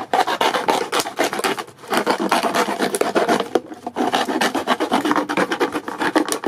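Knife sawing through a plastic bottle to cut off its top: quick rasping, scraping strokes, with short pauses about two and four seconds in.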